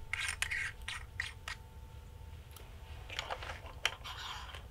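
Gloved hands handling a telescope's camera train while threading a 2-inch light pollution filter into it: short scrapes, clicks and rustles, in a cluster in the first second and a half and another about three seconds in.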